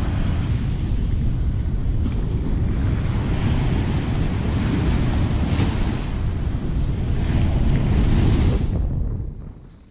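Wind rumbling on a GoPro microphone over the wash of breaking surf. Near the end the sound drops away suddenly.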